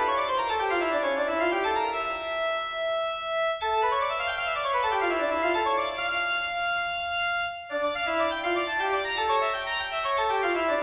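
Background keyboard music with an organ-like sound, playing quick runs of notes that climb and fall in steady steps. The phrase breaks off and restarts abruptly about three and a half and again about seven and a half seconds in.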